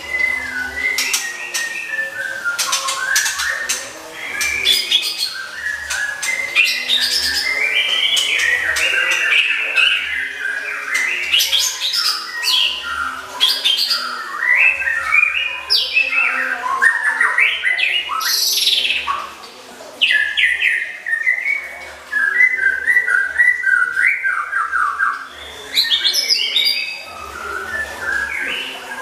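Songbird tutor ('masteran') recording: a continuous, fast-changing medley of chirps, trills, clicks and whistles. A sharp rising whistle comes about two-thirds of the way through.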